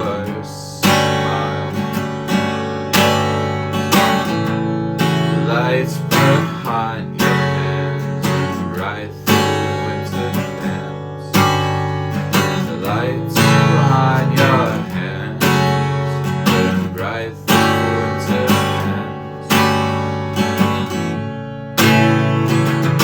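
Instrumental stretch of a song: an acoustic guitar strummed in a steady rhythm, a new chord struck about once a second and left ringing between strokes.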